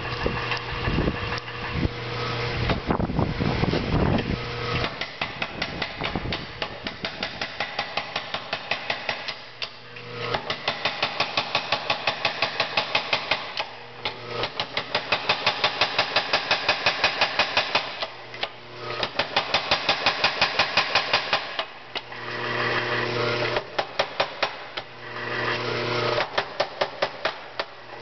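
A 25 lb new-style Little Giant mechanical power hammer drawing out 7/8 inch round stock. It strikes in runs of rapid, even blows lasting a few seconds each, with short pauses between runs, over a steady hum from the machine.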